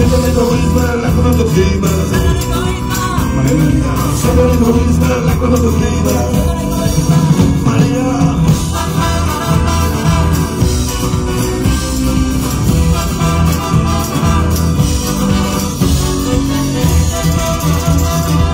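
Live band music from a stage: trumpet and trombone playing over guitars and drums, with no lead vocal line.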